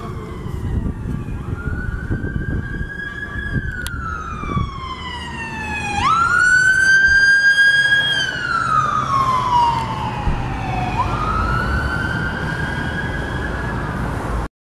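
Fire truck siren wailing in long cycles, each a quick rise in pitch, a short hold and a slow fall, loudest as the truck passes about six to eight seconds in, over engine and traffic rumble. The sound cuts off suddenly near the end.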